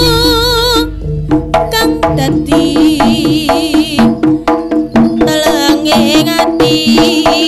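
Live Javanese jaranan gamelan music: fast kendang drum strokes and ringing gong-chime tones in a steady driving rhythm, with a wavering melody line over it at the start and again later, after a brief dip about a second in.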